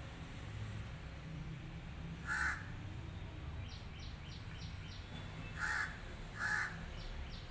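A bird calling three times: once a couple of seconds in, then twice close together near the end. Between them comes a quick run of about five faint, high chirps.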